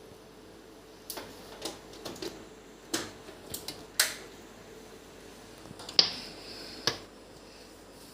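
A series of sharp clicks and knocks, the loudest about four and six seconds in, with a faint high ringing between the click at six seconds and another a second later. The mixer grinder's motor is not running.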